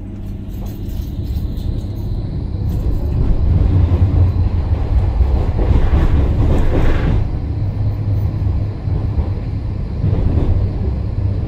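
Electric tram running past on the adjacent track: a steady low rumble of wheels on rail and traction motors that builds up after the start and is loudest around the middle.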